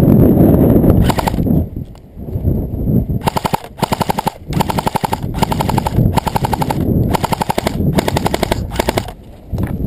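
Airsoft rifle firing a series of short full-auto bursts of rapid clicking shots. One burst comes about a second in and the rest follow close together from about three seconds on. Between the bursts there is rustling of movement through dry grass.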